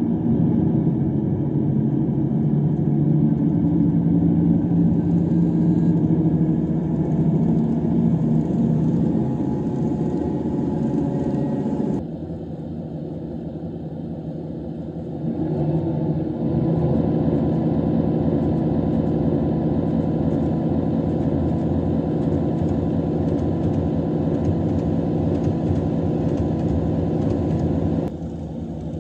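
Recorded Cummins diesel engine sound of a KiHa 85 series railcar, played by a model-railway sound card, running under power. It steps down to a quieter level about twelve seconds in, comes back up a few seconds later, and drops again near the end.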